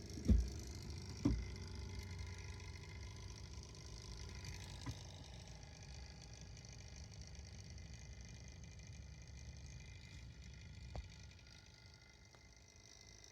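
Small computer cooling fans whirring steadily, with two knocks in the first second and a half and a couple of faint clicks later.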